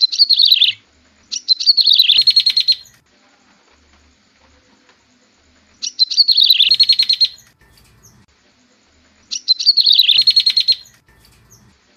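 Yellow-bellied prinia (prenjak tebu) song: about four loud phrases, each a rapid chattering trill of roughly a second and a half that starts high and drops, repeated every few seconds. It is a recorded call used to lure wild prinias in.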